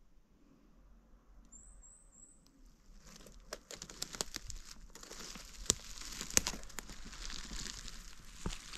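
Footsteps rustling and crunching through forest undergrowth and leaf litter, with irregular sharp crackles, beginning about three seconds in after a quiet start.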